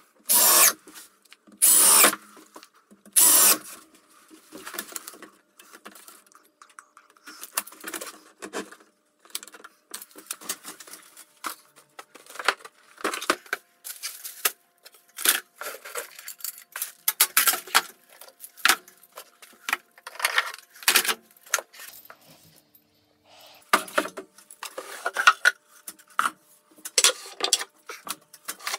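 Cordless drill driving screws into a wooden cabinet top in three short bursts in the first few seconds. After that come scattered knocks and rubs of wooden parts being handled and fitted.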